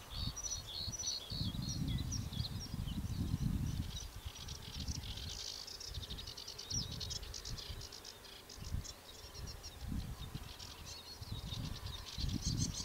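Small songbirds chirping and trilling, with gusts of wind rumbling on the microphone.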